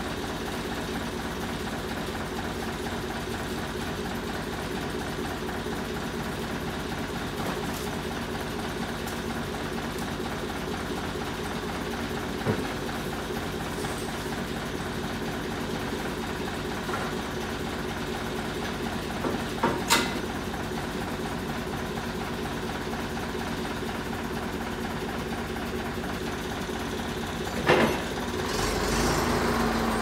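A front loader's engine idling steadily, with a few sharp knocks of heavy pine slabs being shifted onto a steel-framed cart, the loudest about two-thirds of the way through and just before the end. In the last moment the engine picks up as the loader is driven off.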